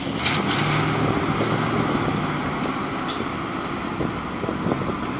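Fire truck engine running steadily as the truck drives slowly along the street, with a brief hiss at the start.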